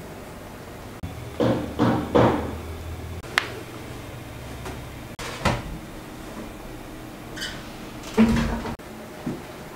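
Kitchen handling sounds of an oven and its metal baking tray: three clunks a second or so in, a sharp click and a knock, then the loudest clunk with a brief ring near the end as the oven door is worked.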